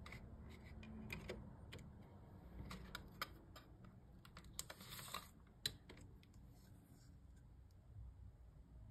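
Faint clicks and taps of a plastic CD jewel case being handled, with a short cluster of clicks and a brief scrape around five seconds in as the paper booklet is worked free of the case.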